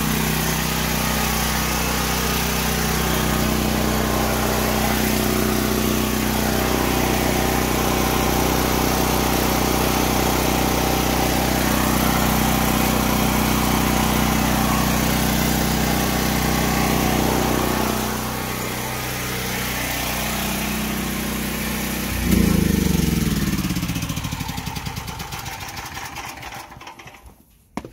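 DuroMax XP12000EH generator's single-cylinder engine running steadily on natural gas through a tri-fuel conversion. About 22 seconds in it is switched off and winds down, its pitch falling until it stops a few seconds later.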